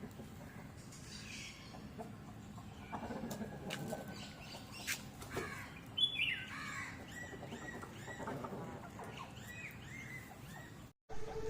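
Chickens clucking, with short, high chirps mixed in, and a few sharp clicks. The sound cuts out for a moment near the end.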